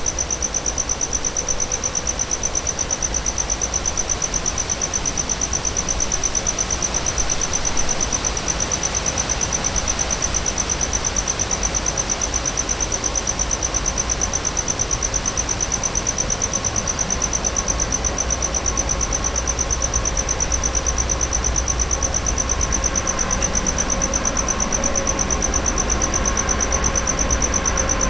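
Insects chirring in a steady, fast-pulsing high-pitched trill, over the low rumble of an approaching loaded electric coal train that grows louder in the second half, with a faint hum rising alongside it.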